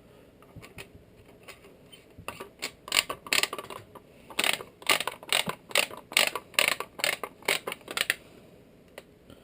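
Metal parts of a Remington Versa Max shotgun being fitted and tightened back together: a few faint ticks, then a quick run of sharp clicks and short scrapes, with quiet near the end.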